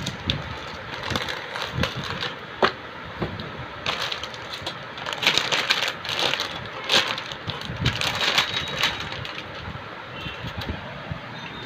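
Crinkling and rustling of a motherboard's anti-static plastic bag being handled and the board slid out of it, densest in the middle, with a few sharp handling clicks.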